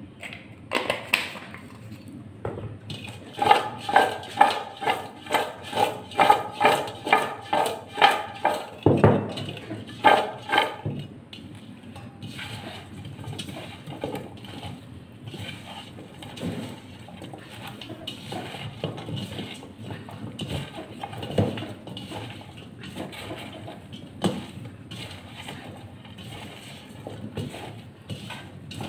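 Rhythmic metallic clinking against a steel bowl, about two strokes a second, each with a ringing tone, for roughly the first ten seconds. Then a hand tosses spiced raw mango slices in the steel bowl: a softer, irregular rustle with occasional knocks against the metal sides.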